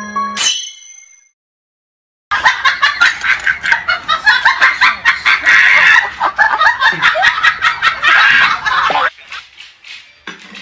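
Loud, hearty laughter in rapid pulses, starting a couple of seconds in and running about seven seconds before dropping away.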